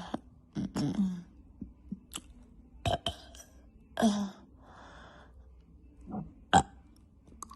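A woman belching in a string of short burps, several of them pitched and dropping in pitch. Sharp clicks fall between them, the loudest a single sharp click near the end.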